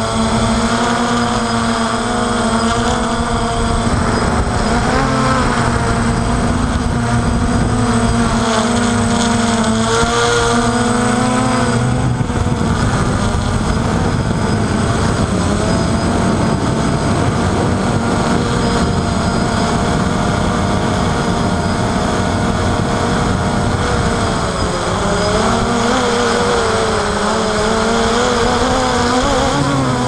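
DJI Phantom quadcopter's motors and propellers whining in flight, heard from the on-board camera, with several tones that waver up and down as the motors change speed, dipping and climbing again near the end. A rushing wind noise runs under it.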